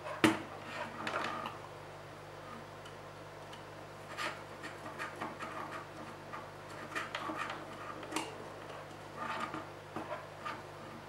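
Small clicks and scrapes of a screwdriver and wire ends being worked into the screw terminals of a motor-driver circuit board, with one sharp click shortly after the start and scattered lighter ticks after it. A steady low hum runs underneath.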